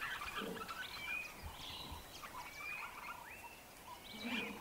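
Birds calling in the bush: many short whistled notes, several rising in pitch, with a brief low grunt about half a second in and again near the end.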